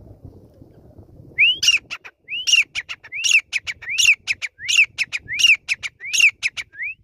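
Grey francolin calling: about a second and a half in it starts a loud, rhythmic series of about seven repeated phrases, each a ringing rising-and-falling note followed by a few sharp clipped notes.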